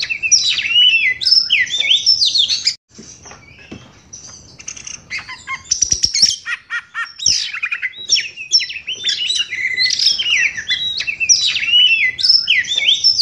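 Caged oriental magpie-robin singing a fast, varied song of loud whistled phrases, pausing for a couple of seconds about three seconds in, then starting again with a few sharp clicks and going back into full song. The bird is freshly through its moult and singing in full voice.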